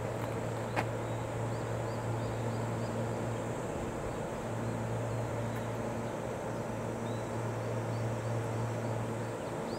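Stationary JR West 227 series electric train humming steadily at the platform, its onboard equipment running; the hum dips about four seconds in and stops shortly before the end. Faint bird chirps sound in the background.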